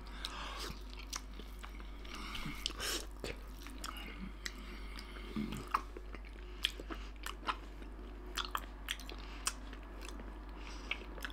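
A toothless man chewing grilled pork side slices with his gums, making irregular soft smacking and clicking mouth sounds.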